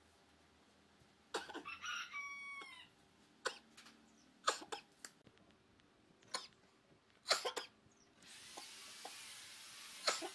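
Sharp clicks and taps of a tape measure and a steel rule being handled and set down on a wooden block. About a second and a half in, a rooster crows once, one call held and then falling away. A steady hiss comes up near the end.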